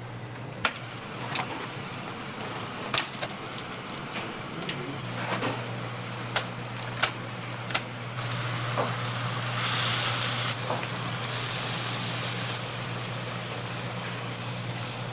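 Dessert preparation sounds: a steady machine hum, with utensils or containers clicking and knocking several times, then a few seconds of hissing noise about two-thirds of the way through.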